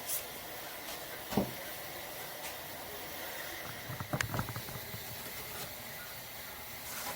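Steady hiss, with a single knock about a second and a half in and a short clatter of knocks around four seconds in.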